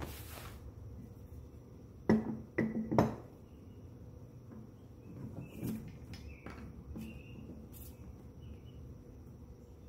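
Wood and a metal pipe clamp knocking against a wooden workbench three times in quick succession, with a short metallic ring, as a glued end-grain blank is set into the clamp; softer clunks follow as the clamp is tightened.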